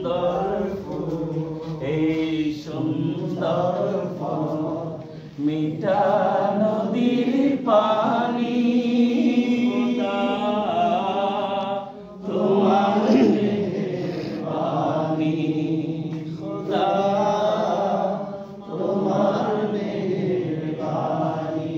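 Unaccompanied singing of a Bengali hamd, a song in praise of God, in long drawn-out phrases with short breaths between them.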